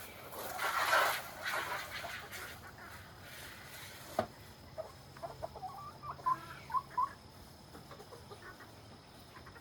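Chickens clucking, with a few short calls about six to seven seconds in. A brief rush of noise comes in the first two seconds, and a single sharp knock about four seconds in.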